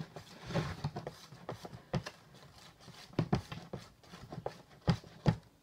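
A spoon stirring glue with baking soda in a plastic tub, scraping and knocking irregularly against the sides and bottom.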